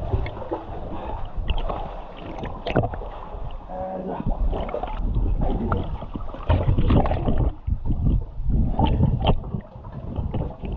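Water sloshing, splashing and gurgling around a swimmer in a flooded cave passage, in irregular surges. The camera rides at the water's surface, so the splashes are close to the microphone.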